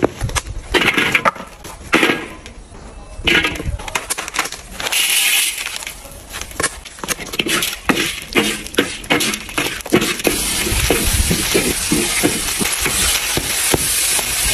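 A wooden spatula scraping and knocking against a steel wok as vegetables are stirred and tossed in hot oil, with many sharp clicks and clatters. From about ten seconds in, a steadier frying sizzle runs under the knocks.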